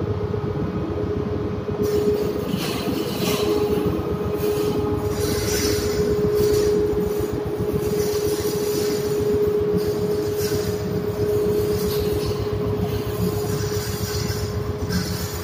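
Ship's steering gear machinery running: a steady mechanical rumble with a constant humming whine.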